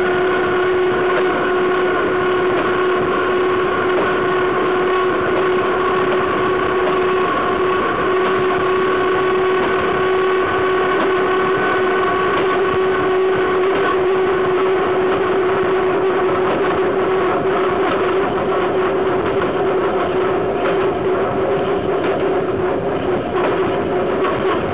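Steel wheels of a BDZ class 43 electric locomotive's bogie running on rail at speed, heard close up: a loud, steady rumble with a constant whine over it. Wheel clicks over rail joints come more often in the last several seconds.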